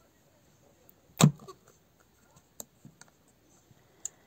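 Handling noises of a plastic baby bottle being picked up: one loud knock about a second in, then a few faint clicks and taps.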